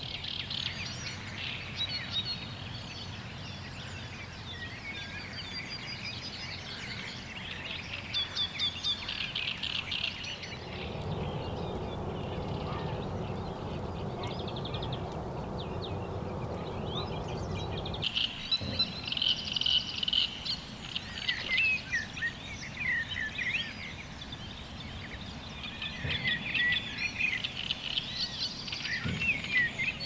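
Several songbirds singing, a busy mix of rapid chirps and trills. For several seconds in the middle a steady rushing noise takes over and the birdsong drops back.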